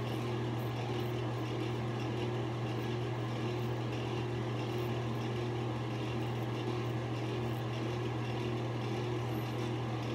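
Steady low machine hum, unchanging throughout, like a room fan or air-conditioning unit running.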